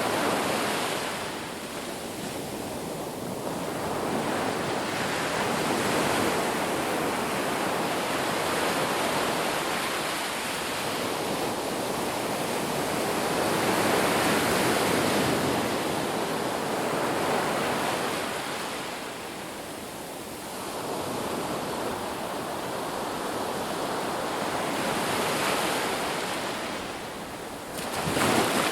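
Ocean surf washing onto a beach: a continuous rush of breaking waves that swells and eases every several seconds, with a brief, louder surge near the end.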